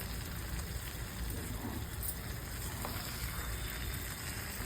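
Chicken pieces frying on a low flame in oil and masala paste: a steady, soft sizzle with a faint tick or two.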